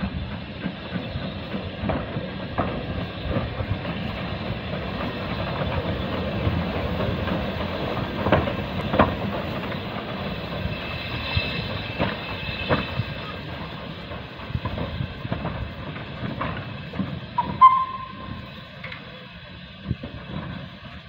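Small industrial saddle-tank steam locomotive working along the yard: exhaust chuffs and clanking running gear with sharp knocks, louder in the middle as it passes and easing off later. A brief high note, like a short whistle toot, sounds near the end.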